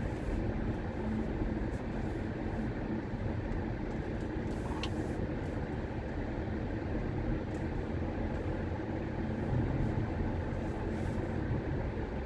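A car driving on a winding road, heard from inside the cabin: a steady low rumble of engine and tyre noise.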